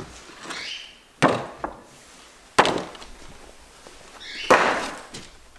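Cardboard gift box being opened and handled: two sharp knocks about a second and a half apart, with soft rustling of the box's contents near the end.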